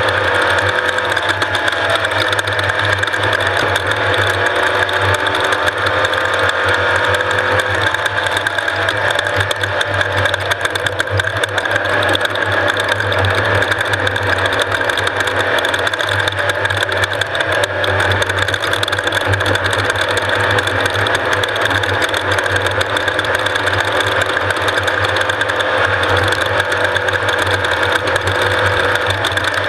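Off-road race vehicle's engine running steadily and loudly.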